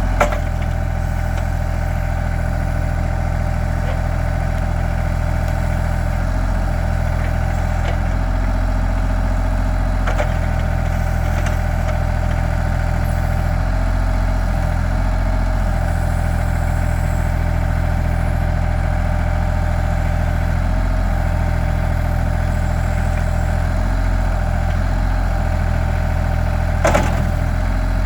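Bad Boy 4025 compact tractor's engine running steadily under throttle, with a few sharp knocks, the loudest near the end.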